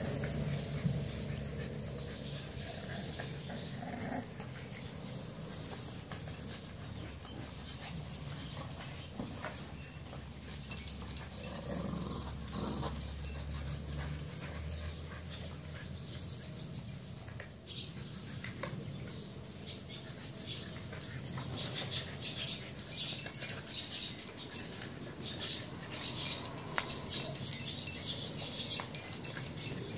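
Puppies at play: occasional small puppy sounds among scattered scratches and clicks, busier over the last several seconds, with a low steady hum that stops about halfway through.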